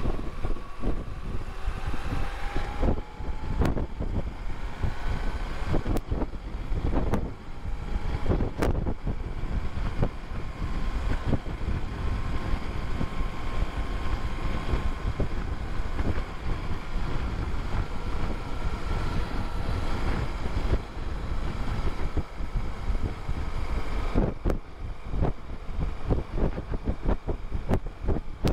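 Wind rushing over the microphone of a motorcycle at road speed, with the running of the BMW R1150RT's boxer twin engine and tyre noise underneath. Wind hits the microphone in short gusts throughout.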